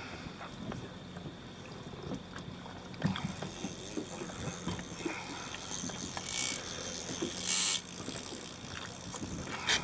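Boat engine running with a steady low hum, with scattered clicks and knocks from the rods and reels on the bow. About three seconds in a high hiss comes in and swells twice, loudest near the middle.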